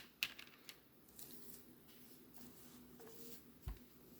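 Faint handling of plastic VHS cassettes: a couple of light clicks near the start and another about three and a half seconds in, with soft rustling between.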